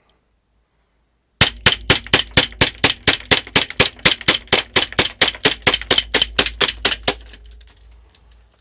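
Green-gas blowback airsoft pistol (EMG/Taran Tactical JW3 STI) fired as fast as possible. It lets off about 25 sharp shots at four to five a second, then stops when the magazine runs out of gas with four BBs still in it.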